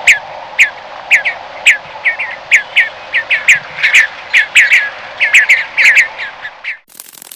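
A rapid series of short, sharp chirps, about three or four a second, each dropping in pitch, over a steady background hiss. The chirping stops about seven seconds in and gives way to a faint crackling.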